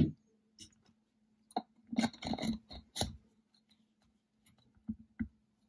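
Small machine parts handled on a bench: scattered clicks and knocks, with a short clatter of several knocks about two seconds in, as the lead-screw housing is fitted over the screw and its bearings.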